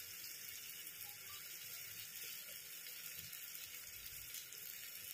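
Faint, steady sizzling of onion, tomato and spice masala frying in oil in a pressure cooker.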